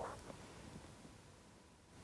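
Near silence: faint background noise that fades away about a second in, leaving almost nothing.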